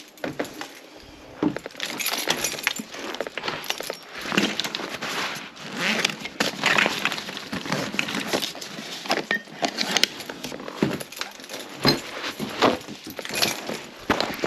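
Irregular clinks, knocks and scraping of metal hand tools and hardware against a porcelain toilet as it is taken apart.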